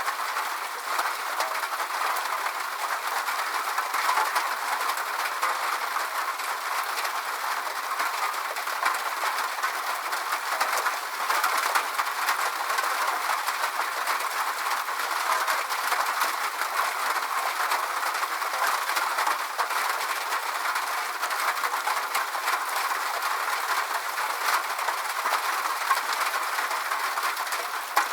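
Steady rain falling: an even hiss of rainfall with dense, fine patter of drops, unchanging in level.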